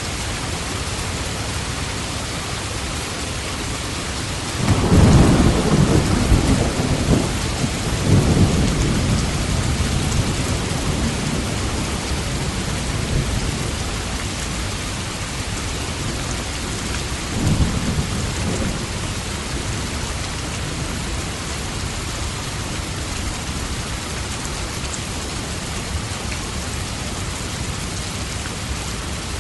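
Steady heavy rain falling, with a roll of thunder about a quarter of the way in that rumbles on for several seconds, and a second shorter rumble about halfway through.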